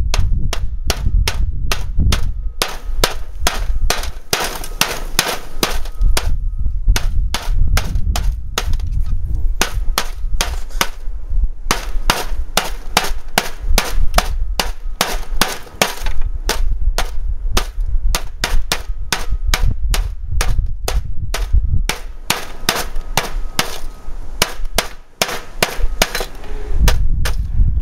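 Claw hammer repeatedly striking a block of dry ice in a metal baking tray, smashing it into chunks and then crushing the pieces: sharp blows about two to three a second, in runs with brief pauses.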